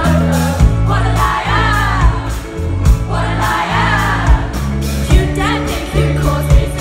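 Live pop band performance: a woman sings over ukulele, drum kit and sustained low bass notes, in sung phrases separated by short gaps, with sharp drum hits underneath.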